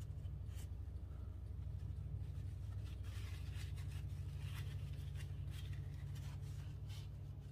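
Paper towel wiping and scrubbing old grease inside a grinder's metal housing: faint scratchy rubbing with a few light ticks, mostly from about three seconds in, over a steady low hum.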